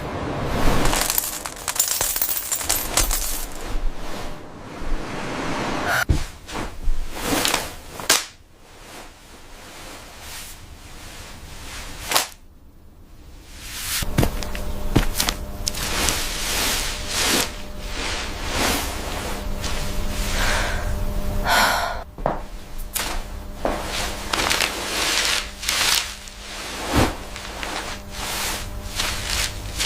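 AI-generated food ASMR sound effects: an irregular run of sharp cracks, crunches and taps, with a quieter, softer stretch in the middle.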